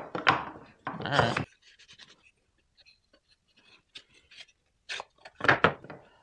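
Wooden slats clattering and sliding against a wooden dowel rod as they are handled, with a few sharp knocks; the loudest clatters come near the start, about a second in, and about five and a half seconds in.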